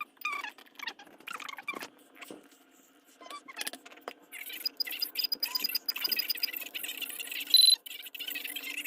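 Weather alert radios being handled, with scattered clicks and scratches as their buttons are pressed, and one short, loud, high-pitched beep near the end.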